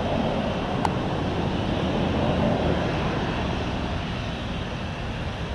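Airbus A320's CFM56-5 turbofan engines at takeoff thrust as the airliner climbs away: a steady, broad jet rumble that eases off toward the end. A single brief click about a second in.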